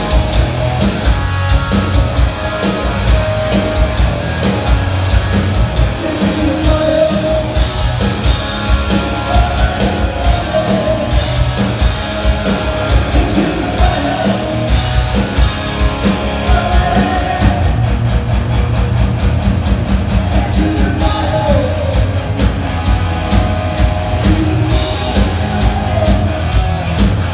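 Heavy metal band playing live: distorted electric guitar, bass and drum kit with a sung lead vocal. The bright top end thins out about two-thirds of the way through while the drums keep hitting.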